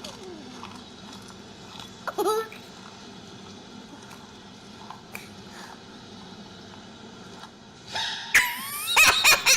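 A child's shrieking, giggling laughter, building up near the end in quick repeated bursts, after a quieter stretch with a steady background hum and a brief high squeal about two seconds in.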